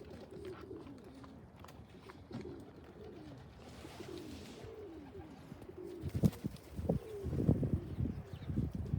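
A pigeon cooing: a run of low coos that rise and fall, repeated over several seconds. About two-thirds of the way through, irregular low thumps and rustles start and grow louder than the cooing.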